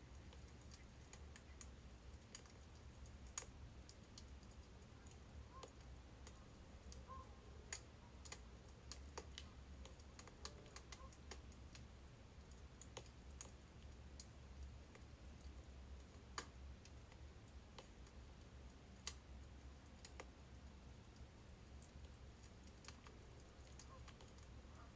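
Faint crackling of a burning birch-wood fire: scattered, irregular sharp pops over a steady low rumble.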